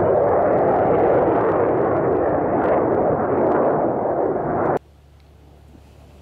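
Jet engine roar from Blue Angels F/A-18 Hornets flying overhead. It is loud and steady and cuts off suddenly about four-fifths of the way in, leaving a faint low hum.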